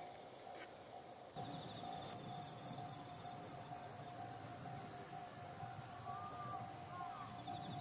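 Insects chirping in a steady high trill, with a regular pulsing mid-pitched tone alongside. The sound gets louder at an abrupt jump about a second and a half in, and a few short chirps come near the end.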